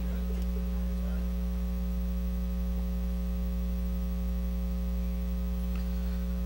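Steady electrical mains hum, a constant low buzz with a few fainter steady tones above it.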